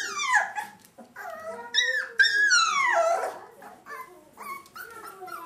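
Shetland sheepdog puppies whining and yipping: high-pitched cries that slide down in pitch, the longest about two to three seconds in, then fainter short ones.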